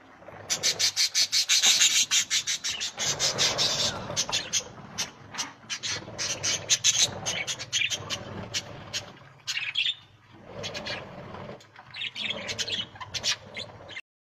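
English budgerigars in an aviary chirping and chattering: a fast run of sharp, high chirps for the first few seconds, then more scattered calls with a short lull about ten seconds in. The sound cuts off suddenly just before the end.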